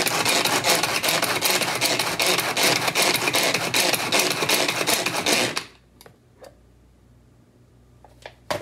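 Manual pull-cord food chopper being pulled again and again, its blades spinning and chopping red onion in a fast, continuous clatter that stops about five and a half seconds in. A few light clicks follow.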